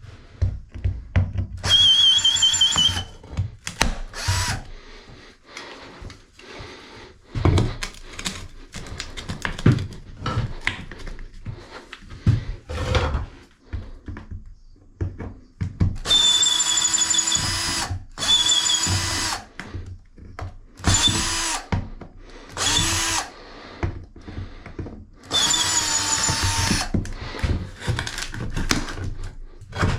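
Power drill running in short bursts, about six times, each ending with the motor spinning down, with knocks and clatter of handling between the bursts.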